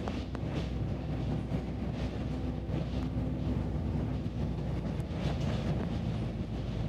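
Bus engine and road noise heard from inside the moving bus: a steady low drone with scattered light clicks and rattles.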